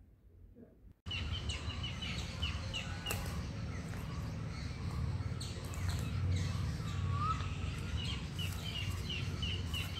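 Outdoor woodland ambience starting about a second in: a bird chirping over and over in short high notes, with a second, lower gliding call once near the end, over a steady low rumble.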